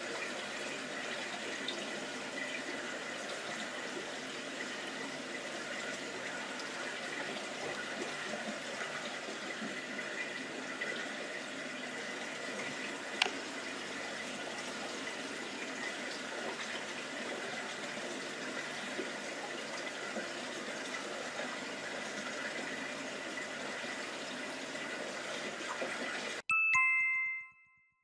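Aquarium air-lift filters bubbling steadily, with a single sharp click about halfway through. Near the end the bubbling cuts off suddenly and a bright chime rings and fades.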